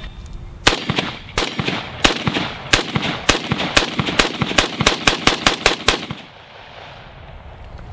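Beretta ARX-100 semi-automatic rifle firing a rapid string of about twenty shots, each a sharp crack. The shots quicken from about three to about five a second and stop about six seconds in.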